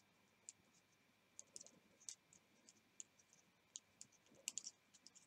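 Faint, irregular clicks of metal knitting needles tapping together as stitches of a cable pattern are worked, about a dozen scattered ticks with short gaps between them.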